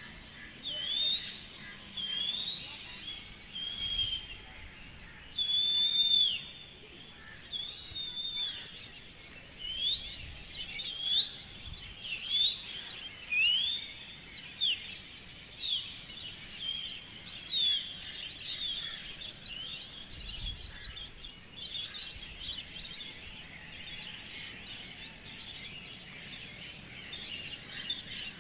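Birds calling: a string of short, high-pitched chirps and whistles, some sliding up and some down, roughly one a second.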